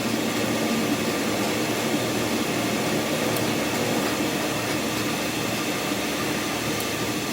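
Steady machine noise: an even drone with a low hum, unchanging in level throughout.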